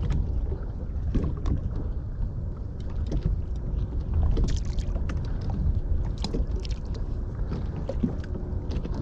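Water slapping and splashing irregularly against the hull of a small boat moving across choppy sea, over a steady low rumble.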